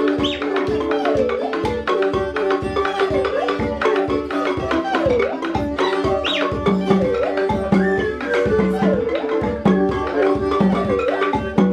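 Background music: drums keep a steady, quick beat under a melody of sliding notes.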